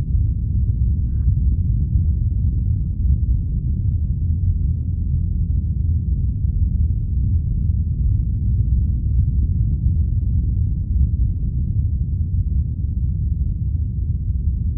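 Simulated earthquake rumble sound effect: a deep, steady rumble of noise with no clear pitch, standing for the ground shaking of a magnitude 8.7 megathrust quake.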